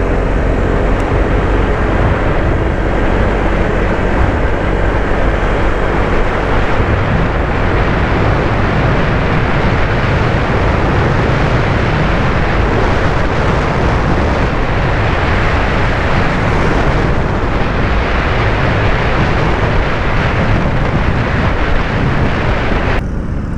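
Wind rushing over the microphone mixed with the road and engine noise of a Honda Vario 160 scooter being ridden at speed, a steady loud rush. Near the end the higher part of the rush drops away suddenly.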